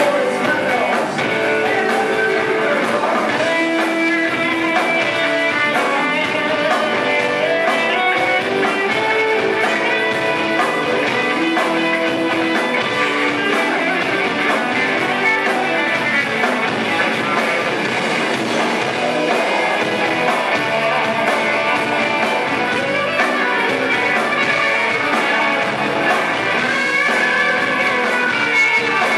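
Live rock band playing, with electric guitars to the fore.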